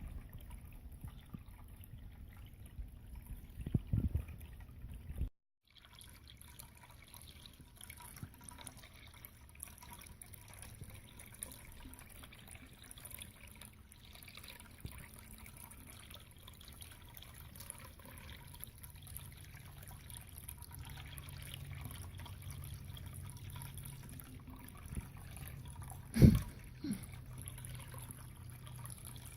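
Drinkwell Stone Pagoda cat water fountain running: water trickling and dripping steadily down the stoneware pagoda. The sound drops out briefly about five seconds in, and a single thump sounds near the end.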